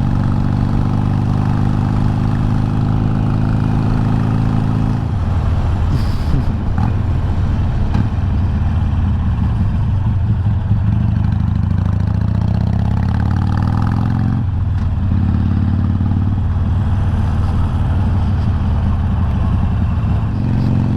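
Harley-Davidson Iron 883's air-cooled V-twin engine running on the move. About twelve seconds in it pulls up through the revs, then drops suddenly at about fourteen and a half seconds, as at a gear change.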